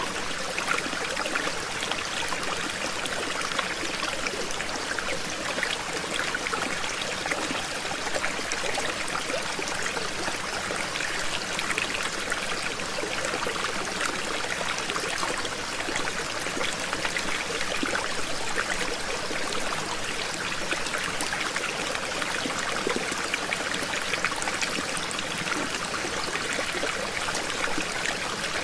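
Small waterfall flowing gently: a steady, even splashing and trickling of falling water, mostly a hiss with little deep rumble.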